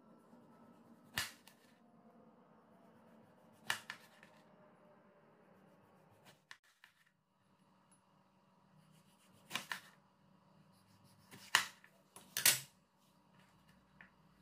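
Kitchen knife slicing eggplant into thick rounds on a cutting board: a sharp knock of the blade on the board every few seconds, irregularly spaced, several in all.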